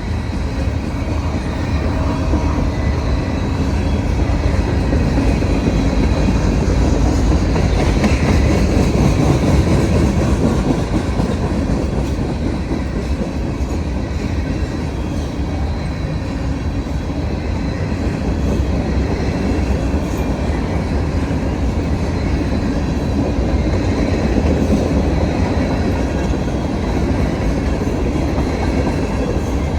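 A CSX freight train's cars rolling past, a steady loud noise of steel wheels on the rails.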